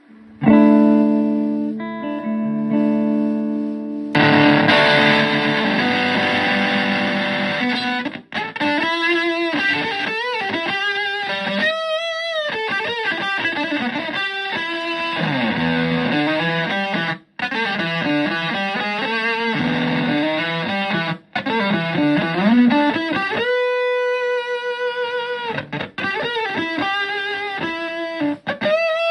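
Electric guitar with humbucker pickups played through a Zonk Machine fuzz pedal into a Fender Twin–style valve amp, giving a thick fuzzed tone. It opens with a few held fuzz chords, then moves into single-note lead lines with string bends and wide vibrato.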